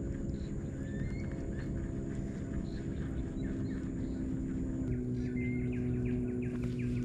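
Steady low motor hum, its pitch stepping slightly about five seconds in, with birds chirping over it now and then.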